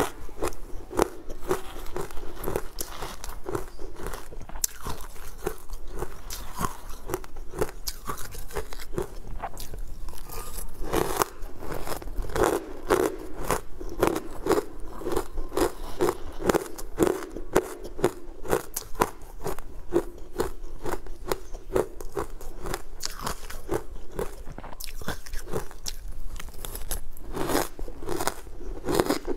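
A person biting and chewing crumbly, chalky green chunks, giving a steady run of many small crisp crunches a second.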